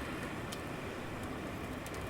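Steady rain falling with a low rumble of city traffic beneath it, and a few sharp drips, one about a quarter of the way in and one near the end.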